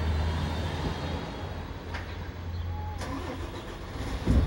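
Steady low rumble of a running vehicle engine, with a brief low thump near the end.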